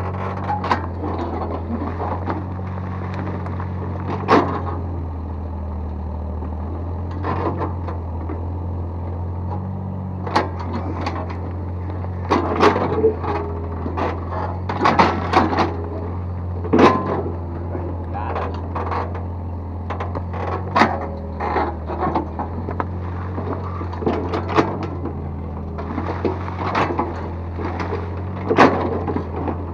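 Excavator's diesel engine running at a steady drone, with irregular clanks and knocks from the bucket working the soil, thickest around the middle.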